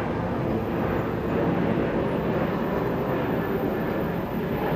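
Jet engines of a Japan Airlines Boeing 767 passing overhead on approach with its landing gear down: a steady, low noise that holds at an even level.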